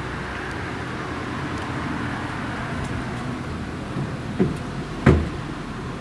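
Strong gusty wind rushing steadily. Two knocks come about four and five seconds in, the second louder and sharper.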